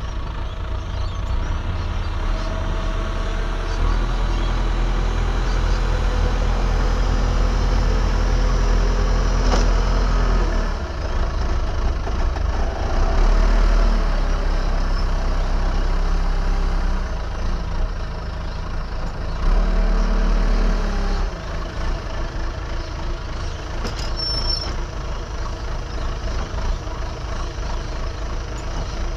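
Diesel engine of an earthmoving machine working, revving up and settling back several times as it takes load. A short high tone sounds about 24 seconds in.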